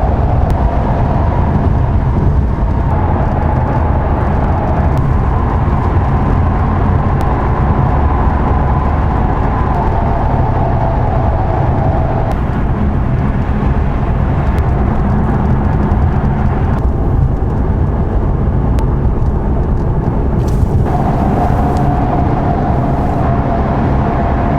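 Ford Mustang cruising on the expressway, heard from inside the cabin: a steady low rumble of engine and tyre-on-road noise with a faint whine that shifts pitch a couple of times.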